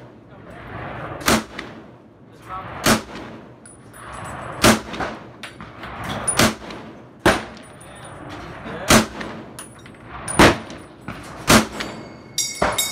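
M1 Garand rifle firing eight shots at an uneven pace, roughly one every one to two seconds. Near the end comes a ringing metallic ping, typical of the empty en bloc clip being ejected after the eighth round.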